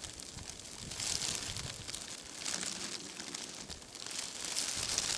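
Foil emergency blanket crinkling as it is handled, in three crackly rustles about a second or two apart.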